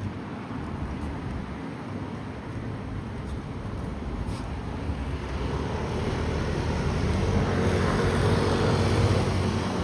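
Outdoor street ambience in which a motor vehicle's engine grows louder over the second half, as if it is approaching and passing close by.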